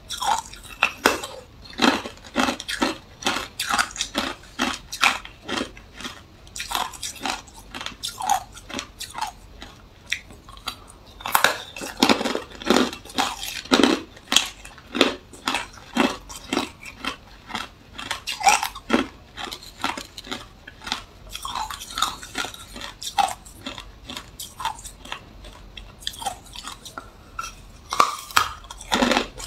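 Hard clear ice being bitten and crunched between the teeth, a dense run of sharp cracks and crunches with pauses, and a few louder clusters of bites.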